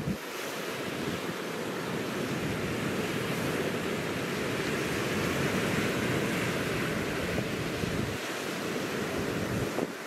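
Sea waves breaking and washing over a stony beach, a surge that swells to its loudest midway and then eases, with wind buffeting the microphone.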